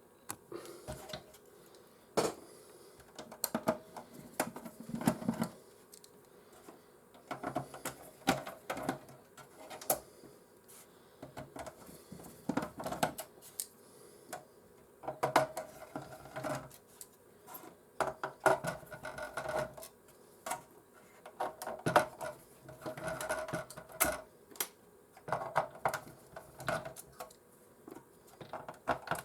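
Irregular clicks, taps and light rattles of small plastic and metal parts being handled and set down while a PlayStation 4 console is taken apart.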